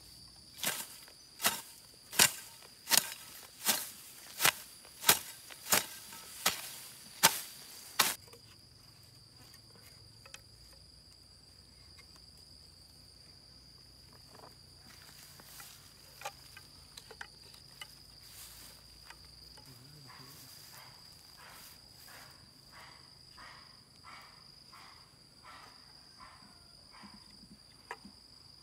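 Footsteps of a barefoot person walking through grass: about eleven sharp, evenly paced steps, one every 0.7 s or so, over the first eight seconds, then they stop. A steady high insect drone runs underneath, and afterward only faint scattered clicks and rustles of hands working soil and string.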